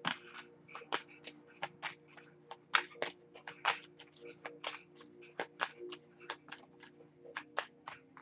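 A deck of oracle cards being shuffled by hand, the cards giving quick irregular clicks and slaps about three to four times a second, over a steady low hum.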